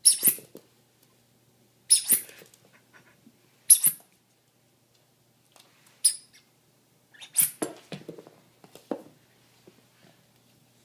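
Rubber squeak toy squeaking in short, shrill squeaks, about six or seven of them, one every second or two, as it is squeezed and chewed.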